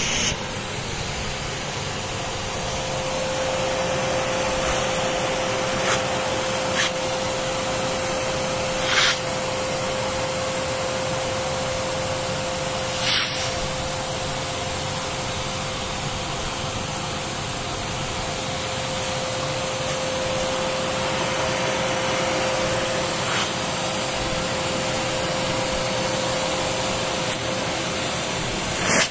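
Kärcher SE 6.100 spray extractor's suction motor running steadily with a constant whine as its upholstery nozzle is drawn over sofa fabric. A handful of brief, sharp noises break in now and then.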